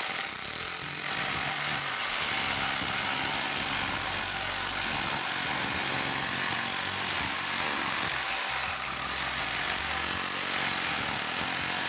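Electric hammer drill running in chipping mode, its chisel bit hammering a groove into a concrete block in a steady, unbroken din.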